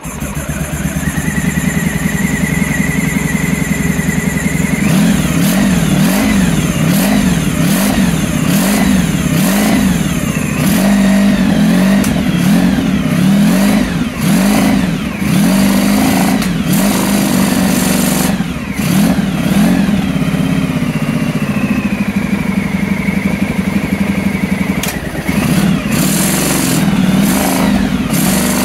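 Honda ST1100 Pan European's V4 engine running after its refurbishment, warming up. The throttle is blipped by hand again and again, so the revs rise and fall repeatedly, about once a second for a stretch in the middle.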